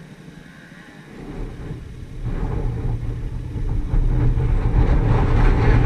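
Off-road vehicle engine running with a low rumble that grows steadily louder from about a second in.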